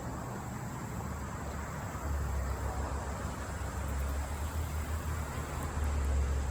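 Steady low rumble with an even hiss over it, outdoor background noise, the rumble growing a little stronger about two seconds in.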